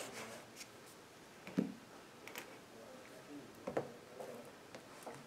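Books being slid along a bookshelf by hand and a paperback pushed in among them: a faint rustle of covers with about three short knocks.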